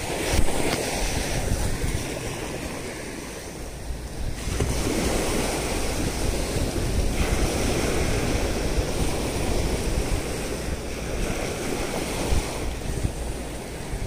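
Small waves breaking and washing up onto a sandy beach, swelling louder about four and a half seconds in, with wind rumbling on the microphone.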